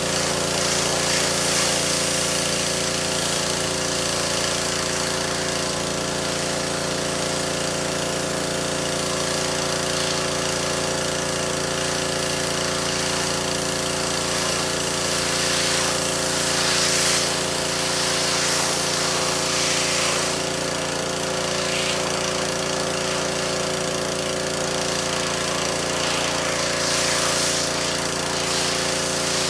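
Pressure washer running steadily while spraying a carpet, a constant machine hum under the hiss of the water jet, which swells now and then as the spray moves.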